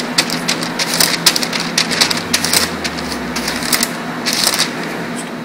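Plastic body-filler spreader scraping across a mixing board in quick repeated strokes, about three a second, folding glazing putty into its hardener until it is all one colour. The strokes die away near the end.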